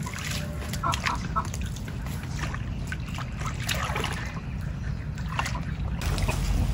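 Water sloshing and trickling.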